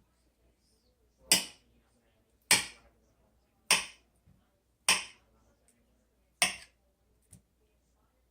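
Kitchen knife slicing a banana into rounds on a cutting board: five sharp knocks of the blade on the board about every 1.2 seconds, then a lighter one near the end.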